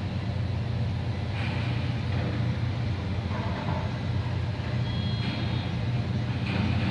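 Steady low rumble of heavy diesel machinery and traffic, with a few short rushes of noise and a brief high beep about five seconds in.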